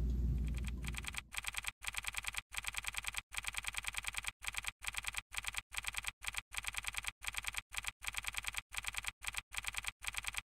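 Typing sound effect: rapid key clicks in short runs with brief gaps between them, like words being typed out. It starts about a second in and cuts off suddenly near the end.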